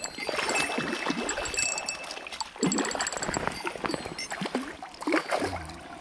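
Water splashing and sloshing as a hooked white-spotted char thrashes at the surface while being played in.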